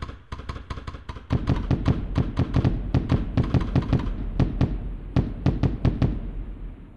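Fireworks going off: a fast, dense run of sharp cracks and pops that gets louder about a second in, then thins out and fades near the end.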